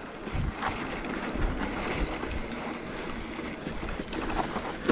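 Wind buffeting the camera microphone as an electric mountain bike rolls down a dirt trail, with tyre rumble and scattered rattles and clicks from the bike over the rough ground.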